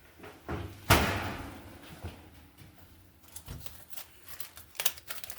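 Oven door shutting with a single loud clunk about a second in, followed by a few faint light clicks and taps.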